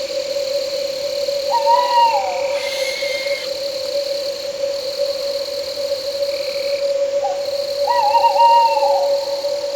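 An owl hooting twice, about six seconds apart, each call about a second long, wavering and then dropping at the end, over steady cricket chirring and a steady insect drone.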